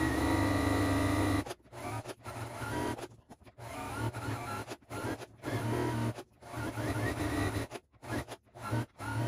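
Domestic sewing machine stitching in stop-start bursts as the fabric is steered by hand for free-motion stitching. The first run lasts about a second and a half, then the machine runs and stops again many times in shorter spurts.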